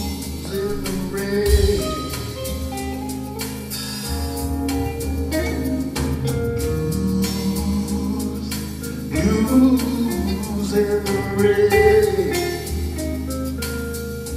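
A live blues band: a man singing over electric keyboard and drums.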